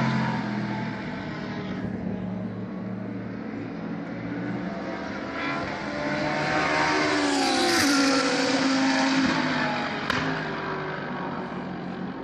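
GT3 race cars passing on the circuit. One fades away at the start. Another approaches and goes by about two-thirds of the way in, its engine note dropping in pitch as it passes, then fades. A short sharp click comes near the end.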